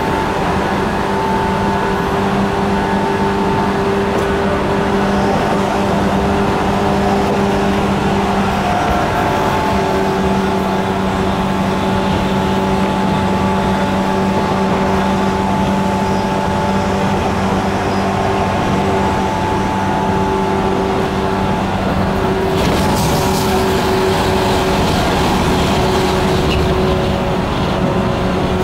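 Inside a JNR 185 series motor car running at a steady speed: the MT54 DC traction motors growl with steady tones over rumbling wheel-and-rail noise. A few seconds of louder hiss come in about three-quarters of the way through.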